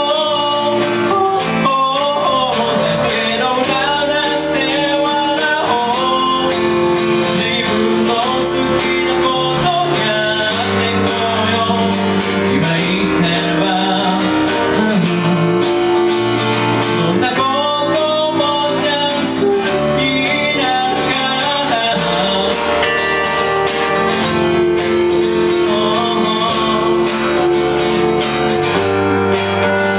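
Live acoustic song: a man singing over his strummed acoustic guitar, accompanied by a Yamaha keyboard.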